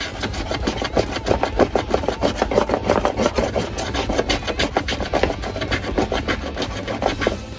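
Metal hand plane cutting across a hardwood board in quick repeated strokes, a rapid scraping rhythm of about six strokes a second.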